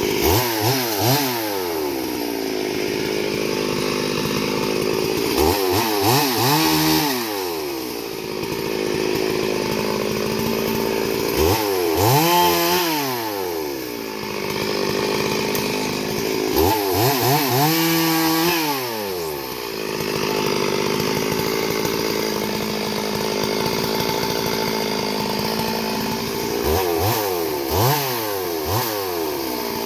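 Chainsaw engine running steadily and being revved up and let back down in about five separate bursts.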